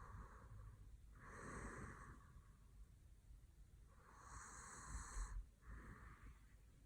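Faint, slow, noisy breathing of a sleeping man, with light snoring: a long breath about every three seconds, each of the two strongest followed by a shorter one.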